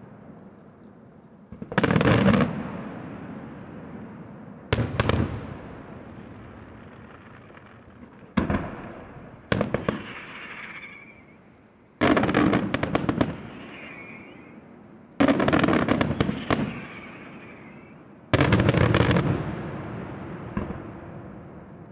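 Aerial firework shells bursting in the night sky, about seven loud reports a few seconds apart, each followed by a long rolling echo that fades away. Crackling and a wavering hiss follow some of the bursts.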